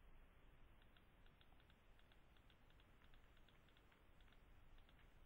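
Near silence with a string of faint, irregular ticks from a stylus tapping on a drawing tablet.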